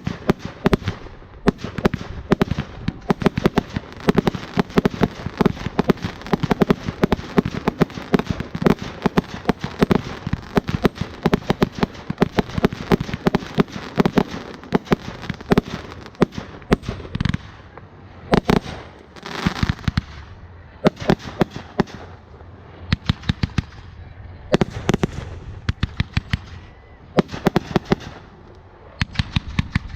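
Fireworks crackling: a dense run of rapid sharp pops that thins out into scattered clusters in the second half, with a burst of steady hiss about two-thirds through.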